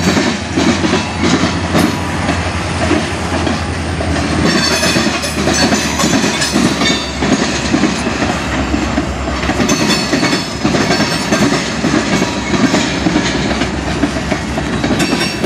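Loud freight train of tank cars and covered hopper cars rolling past at steady speed, the steel wheels clattering in a repeating clickety-clack over the rail joints and the crossing tracks, over a continuous rumble.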